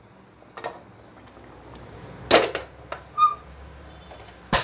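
A few separate knocks and clunks as an aluminium pressure cooker is moved onto another gas burner, with a short metallic ring a little past three seconds in and a sharp loud click near the end.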